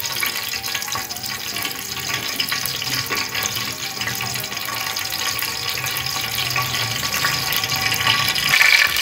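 Cooking oil heating in an aluminium pot, with a steady hiss and light sizzle as small bubbles form in it. Near the end the sizzle turns louder and sharper.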